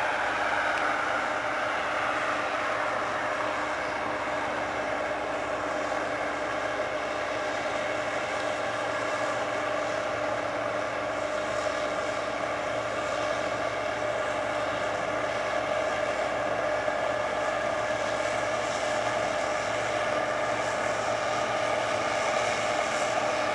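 A machine engine runs steadily with a whining drone. The whine drops in pitch during the first second, then holds steady.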